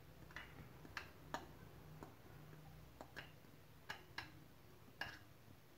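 A fork clicking against the mixing bowl and the aluminium cake pan as the last cake batter is scraped out: about ten faint, irregularly spaced ticks.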